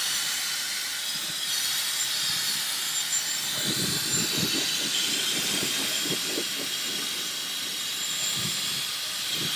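Dyson Supersonic hair dryer running steadily: an even rush of blown air with a thin high whine over it.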